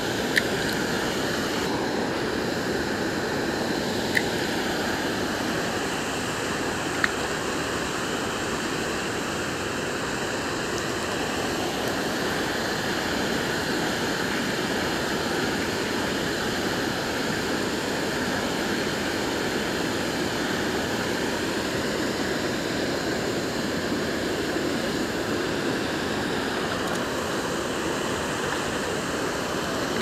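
Water rushing steadily over a low-head dam spillway into the river below. A few short sharp clicks sit over it in the first seven seconds.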